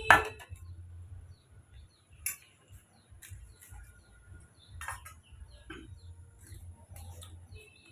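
Sparse light clinks and knocks of plates and cutlery, a few seconds apart, with faint bird chirps in the background.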